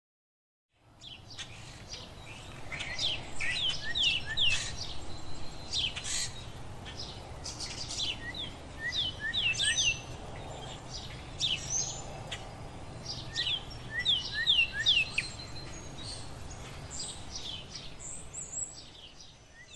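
Several birds chirping at once, a busy run of short, quick down-slurred chirps and a few longer notes, over a low steady background noise. It starts after about a second of silence.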